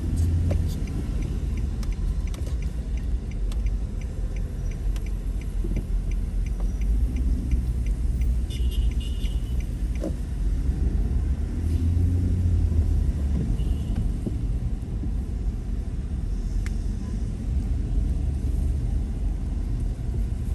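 Low, steady rumble of a car's engine and tyres on a wet road, heard from inside the moving car's cabin. It swells a little twice as the car speeds up. A regular light ticking runs through the first several seconds.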